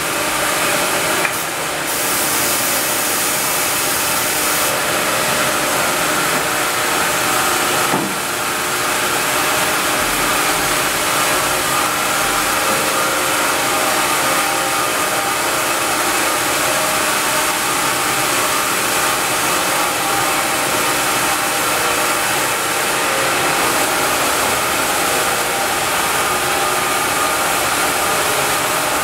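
Band-saw headrig and its carriage machinery running steadily with a constant whine and hum, with a short change in the sound about a second in and a single knock about eight seconds in.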